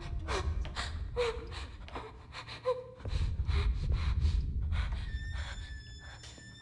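A frightened woman panting and gasping in quick, uneven breaths over a low rumbling drone that swells about three seconds in. A thin, steady high tone comes in near the end.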